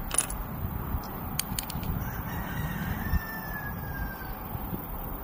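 A rooster crowing faintly, one long slightly falling call starting about two seconds in. A few light clicks in the first two seconds from steel-cased rifle cartridges and a digital caliper being handled.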